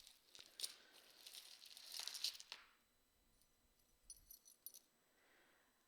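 Costume jewelry being handled: a few light clicks and clinks of small pieces, and a soft rustle around two seconds in.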